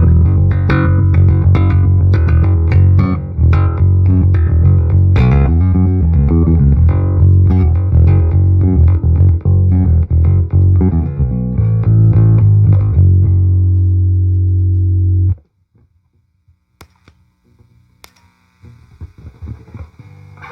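Electric bass played through a Peavey VB-2 all-tube bass amplifier, a riff of plucked notes ending on a held note that cuts off abruptly. Then come a few seconds of faint clicks and low hum, with faint sounds returning near the end.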